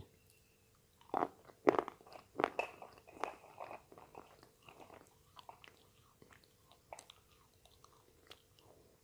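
Slate pencil being bitten and chewed: a run of loud, sharp crunches about a second in, then softer, scattered crunching as the pieces are chewed.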